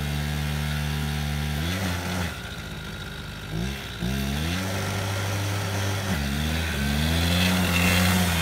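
Arctic Cat Kitty Cat youth snowmobile's small engine running. It slows and picks up again about two seconds in and once more around six seconds, then runs at higher revs near the end as the sled pulls away.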